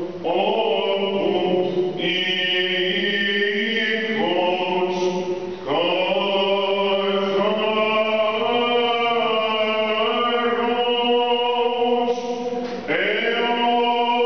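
Byzantine chant sung by a male chanter: long, drawn-out melismatic notes gliding between pitches, broken by brief pauses for breath about a third of the way in and near the end. A steady low held note runs beneath the melody.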